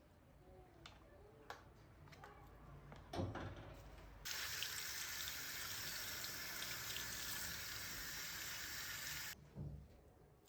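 A tap turned on, water running into a sink for about five seconds and then cut off abruptly. A few light knocks and a thump come before it, and another knock right after it stops.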